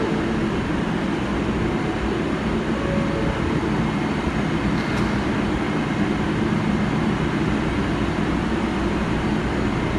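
Steady low rumble of New York City Subway 7-line cars as a train pulls out of the station.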